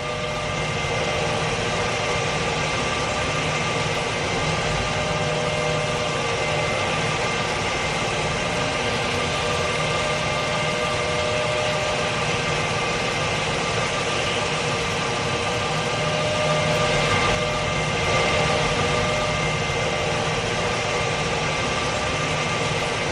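A steady engine-like running sound with a constant whine over a broad hiss. It starts and stops abruptly.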